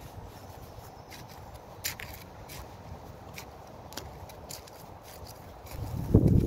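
Hand trowel scraping and digging into soil and bark mulch, with faint short scrapes and clicks every second or so over a steady low rumble. Near the end there is a short, louder low rumble.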